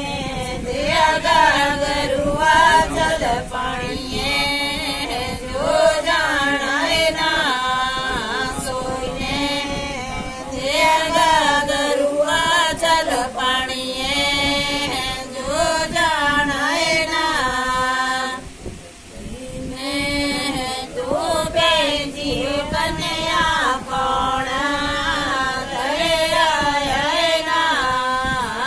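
A group of women singing a traditional Himachali wedding folk song together, voices only with no instruments, in long wavering sung lines. The singing breaks off briefly about two-thirds of the way through, then resumes.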